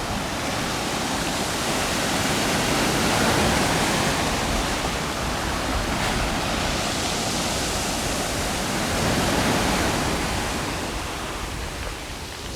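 Sea surf washing onto the shore: a steady rushing noise that swells a little about three seconds in and again about nine seconds in, easing off near the end.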